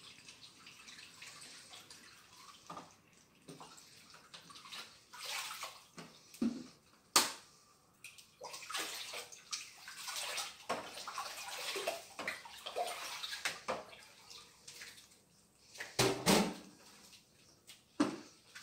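Water being poured and sloshed by hand in a plastic basin as soju and vinegar are mixed into it, with a sharp clack about seven seconds in and a knock near the end.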